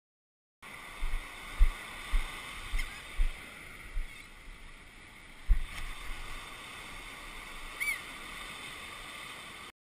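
Wind buffeting a camera microphone in a series of low thumps over the steady wash of ocean surf on a beach. A single gull call comes near the end.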